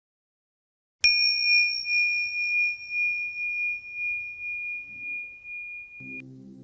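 A small bell struck once, its single high, clear tone ringing and slowly fading, then cut off abruptly near the end. A faint low drone begins just before the cut.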